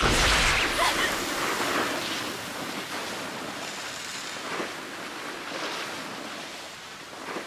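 A rush of wind-like noise, loudest at the start and fading slowly over several seconds, with a few faint swells along the way.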